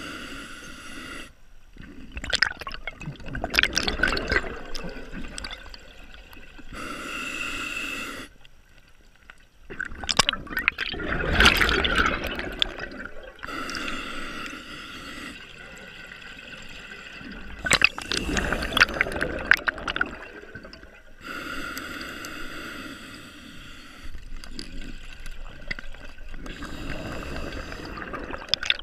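Scuba diver breathing through a regulator: a hissing inhale with a faint whistle, then a louder burst of exhaust bubbles, repeating about every eight seconds.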